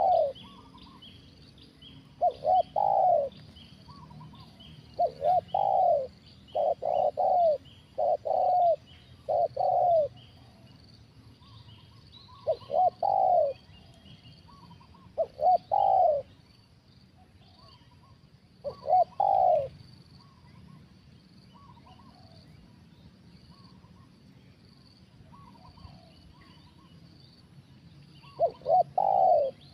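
Spotted dove cooing loudly in short repeated phrases, each a brief note followed by a longer coo. The cooing pauses for several seconds in the latter half and resumes near the end.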